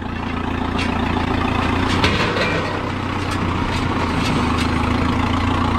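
Circa-1970 Case 580 Construction King backhoe's engine running steadily at idle, with a few light clicks over it.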